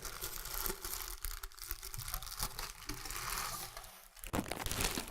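Packaging rustling and crinkling as it is handled and pulled off the appliance, with tearing sounds.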